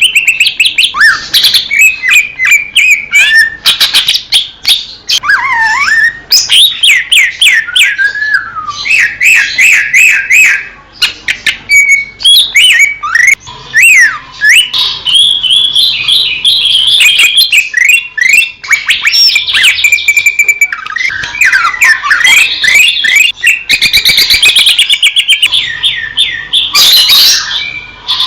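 Green leafbird (cucak ijo) singing a loud, varied song: rapid whistles, up-and-down sweeping notes and fast trills that follow one another with hardly a pause.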